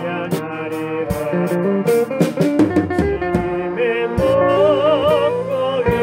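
Live band music: keyboard and a lead melody over a drum beat, with the lead holding long wavering notes from about four seconds in.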